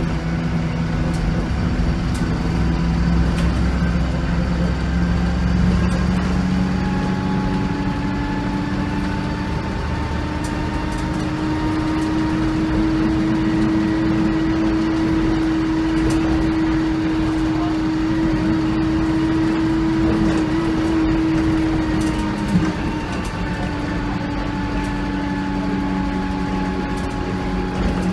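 VDL SB200 Wright Commander bus's rear-mounted diesel engine running under way, heard from the rear saloon seats. Its note climbs about a third of the way in, holds at a higher pitch for a while, then drops back near the end, with a fainter whine rising and falling along with it over steady road rumble.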